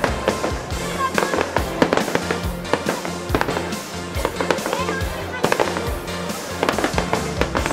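Aerial firework shells bursting in quick, irregular succession: many sharp bangs and crackles, with background music playing under them.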